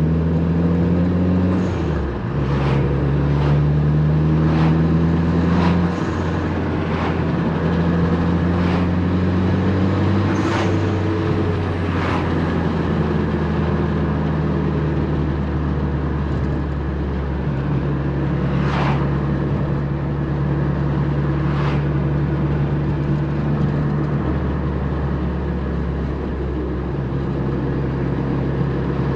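Mitsubishi Lancer Evolution VIII's turbocharged 4G63 inline-four heard while driving: the engine pulls up in pitch, drops suddenly on upshifts about two and six seconds in, then runs at a nearly steady cruise with gentle rises. Short sharp ticks sound now and then, mostly in the first half.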